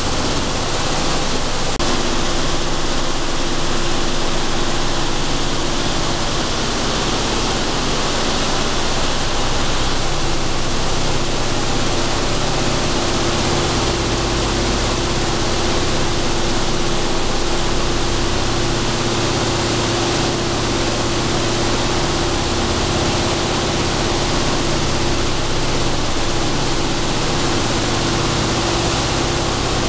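Sunflower seed cleaning and dehulling line running: a loud, even rush of machinery and moving air from fans and vibrating gravity separator decks, with a steady hum that comes in about two seconds in.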